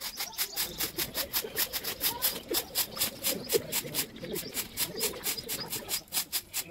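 Straw hand broom sweeping a brick-paved floor: quick, even swishing strokes, about four or five a second.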